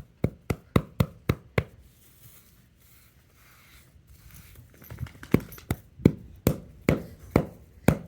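Dog digging in the dirt with its front paws: quick rhythmic scratching strikes, a short run, a pause of about three seconds, then a longer run.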